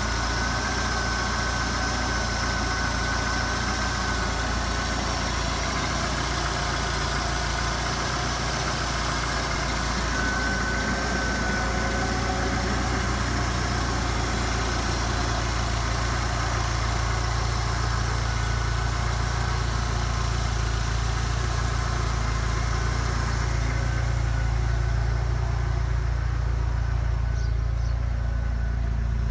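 1990 Jeep Wrangler YJ's 2.5-litre four-cylinder engine idling steadily, breathing through a new quiet-flow muffler. Near the end the higher-pitched engine-bay clatter fades as the low exhaust note at the rear takes over.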